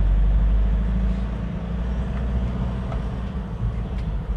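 Motor vehicle engine and road noise heard from the vehicle on a steep zigzag mountain road: a steady low rumble, loudest in the first second and easing slightly after.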